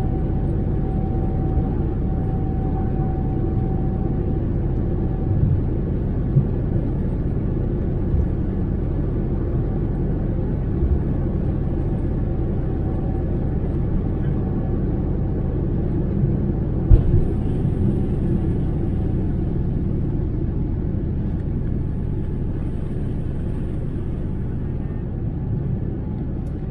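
Cabin noise of a Boeing 787-9 on its takeoff roll: a steady rumble of engines and wheels on the runway, with a few small knocks and one sharp thud about 17 seconds in. The rumble eases a little near the end as the airliner lifts off.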